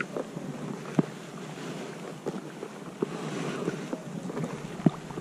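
Water splashing and lapping against a kayak's hull on a flowing river, with scattered small sharp knocks and drips through a steady watery hiss.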